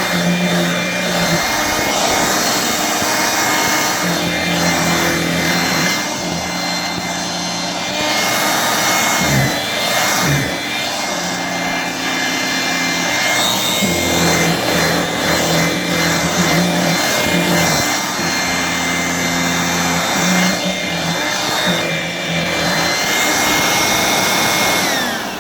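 1985 Hoover Brush Vac vacuum running steadily, a high motor whine over the rush of its airflow and beater brush, the sound shifting a little as it is worked over the floor. Near the end it is switched off and the motor winds down.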